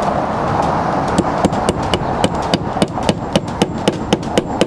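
Claw hammer driving a nail through a concrete S-tile hip tile into the hip board: a fast run of sharp taps that starts about a second in, roughly four a second.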